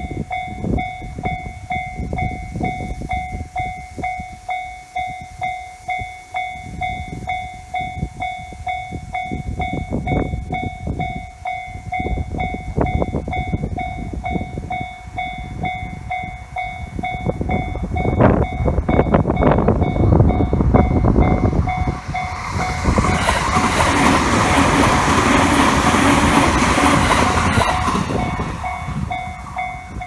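Japanese level-crossing warning bell ringing in a fast, repeating electronic ding. About 18 seconds in a train approaches with clicking wheels and runs past loudly for several seconds. The bell stops near the end.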